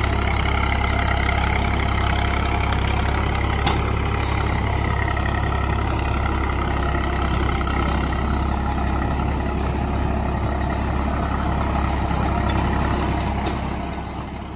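Swaraj 855 tractor's three-cylinder diesel engine running steadily under load while driving a super seeder through paddy stubble, fading out near the end.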